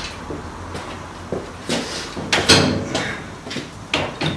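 Scattered clunks and knocks of metal tools and motorcycle parts being handled and set down, about half a dozen separate knocks with the loudest about halfway through.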